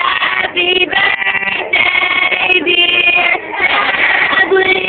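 High-pitched singing with music: a run of held notes broken by short gaps.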